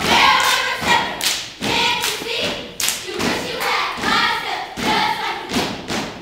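A children's step team stomping and clapping in rhythm while chanting in unison.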